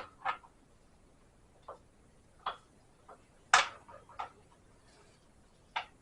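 Sharp metal clicks and taps, about seven at irregular spacing, the loudest about three and a half seconds in: parts and tools being handled on a GM 8.5 rear differential with a governor locker.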